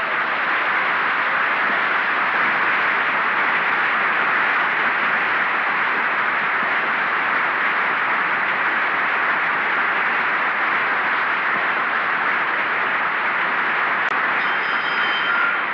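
Loud, steady applause from a full parliamentary chamber. Near the end a hand bell is rung over it, with a clear ringing tone at several pitches.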